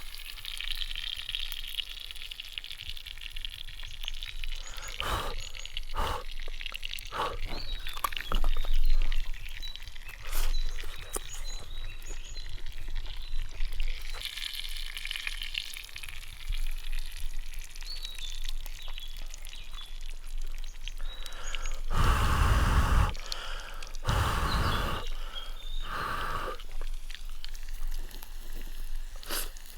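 Small birds singing in a spring forest, with scattered light knocks and clicks and two louder rushing sounds of about a second each, two-thirds of the way through.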